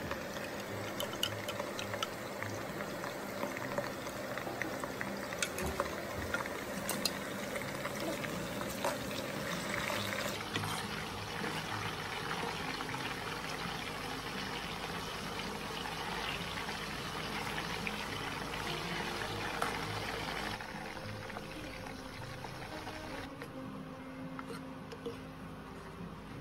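Green banana slices deep-frying in hot oil: a steady sizzle with scattered pops and crackles.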